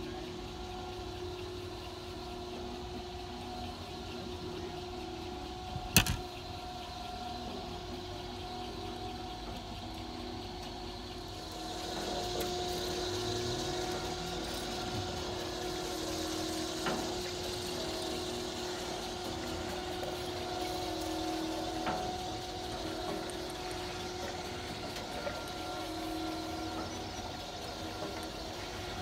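A motor running with a steady hum that holds several constant pitches and grows somewhat louder about twelve seconds in. A single sharp knock comes about six seconds in, with a couple of fainter clicks later.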